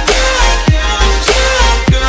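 Electronic background music with a steady beat: deep bass hits that drop sharply in pitch, under gliding synth notes.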